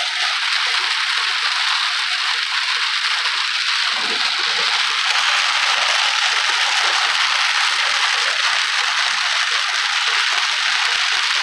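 Heavy rain drumming on a car's roof and windshield, heard from inside the cabin as a steady, dense hiss while the car drives on a wet road.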